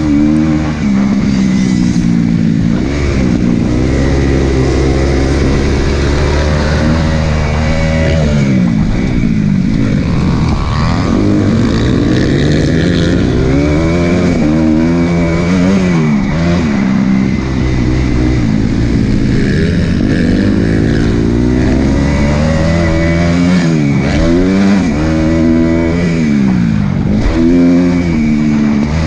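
Motocross bike engine heard on board, revving up and dropping back again and again as the rider accelerates, shifts and rolls off along a dirt track.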